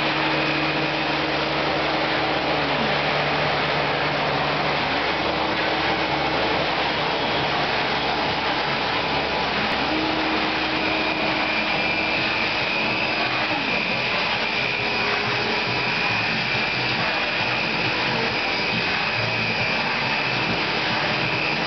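Makita wet sander running steadily on a ShopBot CNC, polishing a concrete countertop: a constant motor noise with a faint high whine. A lower hum drops away and returns a few times.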